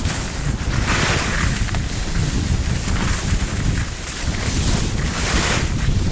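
Wind buffeting the microphone of a skier moving down a packed-snow track, over a steady hiss of skis sliding on the snow. Two louder scrapes of the ski edges come about a second in and again near the end.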